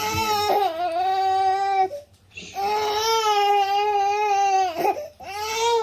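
Baby crying in three long, steady wails, each about two seconds, with short gasps for breath between them. The baby is upset at being coaxed to roll over.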